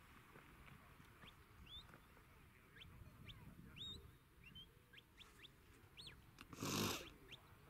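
Faint birds chirping in short, scattered calls. About six and a half seconds in, a brief loud rush of noise.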